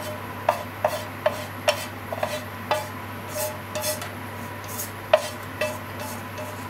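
Wooden chopsticks scraping and knocking against a frying pan as saucy stir-fried squid and onion are pushed out onto a plate: irregular light clicks with a brief ring, with a softer scraping stretch in the middle.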